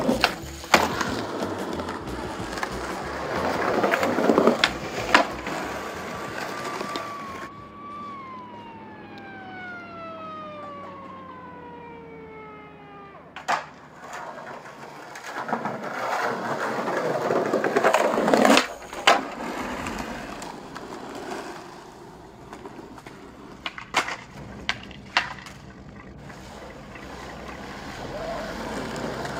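Skateboard wheels rolling over concrete and paving, with sharp board clacks from pops and landings several times. In the middle, a pitched tone with overtones holds for about a second, then slides steadily down in pitch for about five seconds and stops at a clack.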